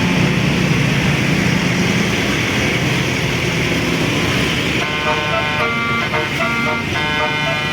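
Road traffic noise, then about five seconds in a bus's multi-tone 'basuri' telolet horn starts playing a quick melody of short stepped notes.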